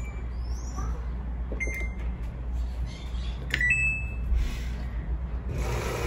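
Samsung top-loading washing machine's control panel giving two short electronic beeps about two seconds apart. Near the end, water starts rushing into the drum as the fill begins.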